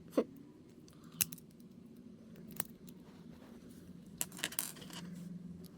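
Small plastic figure-kit parts being handled and pressed together: scattered sharp clicks and taps, with a cluster of them a little past the middle, over a faint steady low hum.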